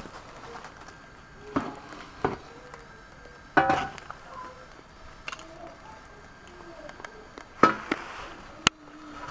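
Scattered scrapes and knocks of yard work on paving slabs: a shovel blade and rubber boots moving through fallen leaves, a handful of separate hits with a sharp click near the end.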